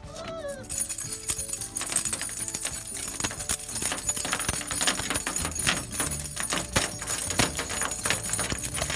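A dense jingling, rattling clatter with many sharp clicks starts suddenly just under a second in and keeps going. It is an unfamiliar noise sounded for the puppies.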